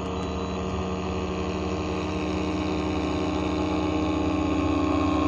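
Single-engine propeller airplane flying low, its engine drone growing steadily louder as it approaches overhead.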